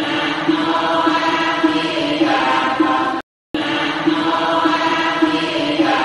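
Buddhist chanting by a group of voices, a short phrase repeating as a loop. It is broken by a brief silent gap a little past halfway, where the loop starts over.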